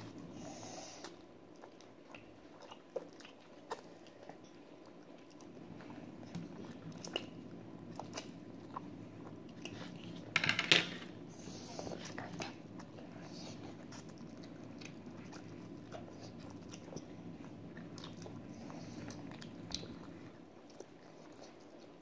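Children eating instant noodles: quiet chewing with scattered small clicks of utensils, and one louder burst about ten and a half seconds in.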